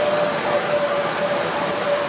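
Freight train rolling past: the rear of a VR Class Sr1 electric locomotive, then covered freight wagons, making a steady rolling noise with a steady whine over it.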